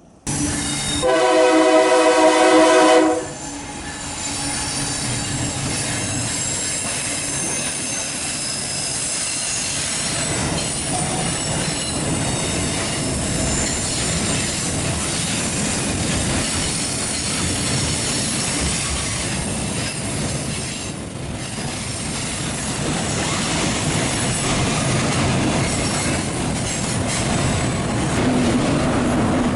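Freight-train locomotive horn sounding one long blast of about two seconds, starting about a second in. Then the train runs past steadily, its steel wheels squealing against the rails in high shifting tones over the rumble of the cars.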